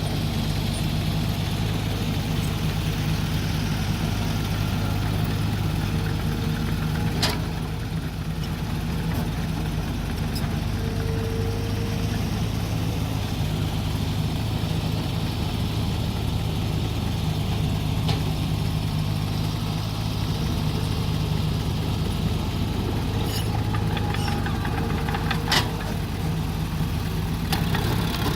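Mini excavator's engine running steadily as it digs, with a few sharp knocks, one about seven seconds in and a couple near the end.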